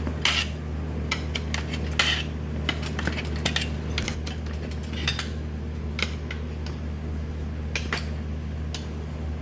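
Metal tire lever clinking and scraping against a motorcycle wheel rim as the tire bead is levered off, in irregular clicks and knocks over a steady low hum.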